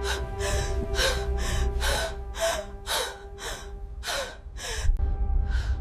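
Rapid, heavy gasping breaths, about two a second, over a steady held music drone.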